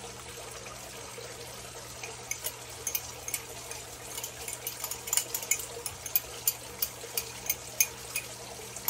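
Liquid being poured from a cup into a saucepan of cheese-sauce roux while a wire whisk stirs it, the whisk clicking against the steel pan about three times a second from about two seconds in.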